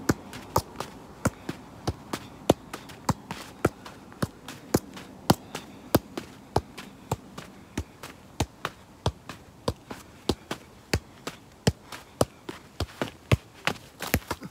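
A size 4 football being juggled on the feet, each touch a sharp thud in a steady run of about two touches a second.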